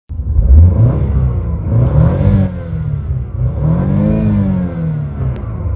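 BMW car engine revved in park, its pitch rising and falling twice as the throttle is blipped.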